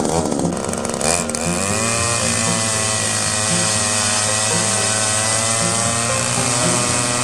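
Gas-powered ice auger's small engine revving up about a second in, then running at steady high speed as the auger bores a hole through lake ice.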